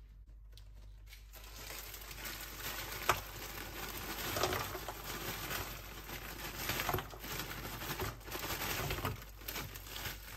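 Plastic bag of frozen broccoli crinkling as the florets are tipped into a saucepan of hot water, with irregular clinks and splashes as they drop in.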